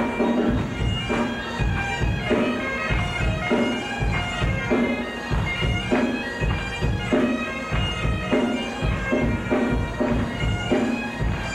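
Celtic rock band playing live, led by Highland bagpipes: the pipes carry the melody over their steady drone, with drums beating a regular rhythm underneath.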